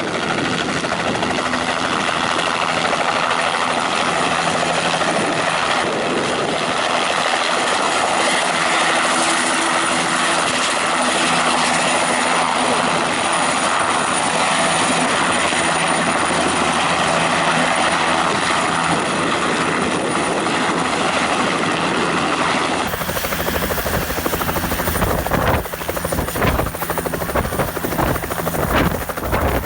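Helicopter running steadily: an even rush of rotor and engine noise with steady tones through it. About two thirds of the way in the sound changes abruptly to a deeper rumble with irregular thumps.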